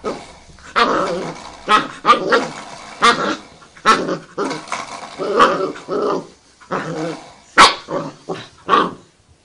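Puppy growling and yapping in repeated short bursts while pawing and biting at a spring doorstop, with one sharp snap about three-quarters of the way through.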